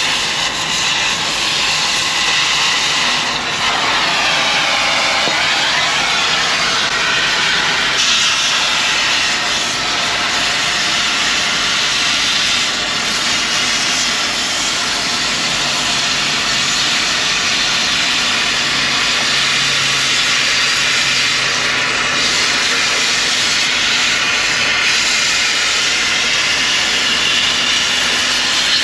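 Oxy-fuel cutting torch running with a loud, steady hiss as it cuts an old brake spider off a semi-trailer axle.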